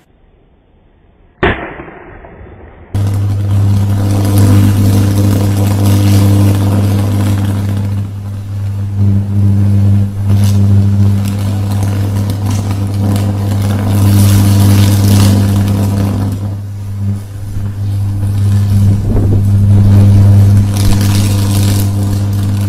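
High-voltage electrical arc burning steadily: a loud, deep buzzing hum with crackling and sputtering over it, starting about three seconds in. Before it, near silence broken by one sharp crack.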